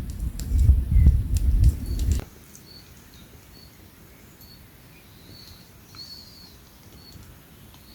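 A loud low rumble for about two seconds that cuts off suddenly, then quiet outdoor ambience with short high chirps repeating every half second or so.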